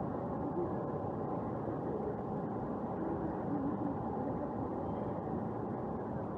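Steady busy city-street noise at night: a continuous hum of traffic, with a faint blur of distant voices.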